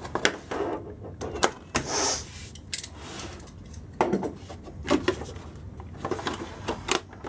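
RC truck box packaging being handled, cut and torn open: scattered clicks, knocks and rustles of cardboard and plastic, with a short scraping rush about two seconds in.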